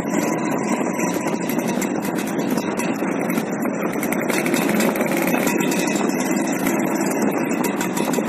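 Vintage Vespa-style scooter engines running steadily while riding along a city street, a dense, even engine noise with no changes in pace.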